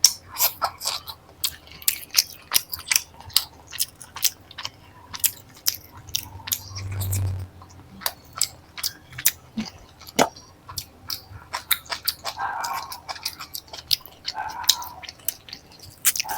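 Close-miked chewing of paneer curry with flaky paratha: wet mouth smacks and clicks coming quickly and irregularly, a few a second. About seven seconds in there is a longer, louder rush of noise.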